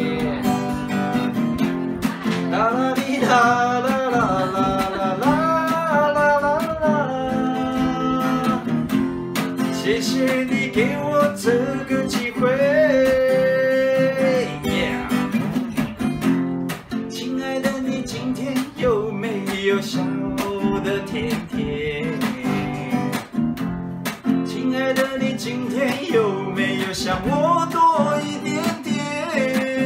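A man singing while strumming an acoustic guitar, the voice carrying a wavering melody in phrases over steady strummed chords.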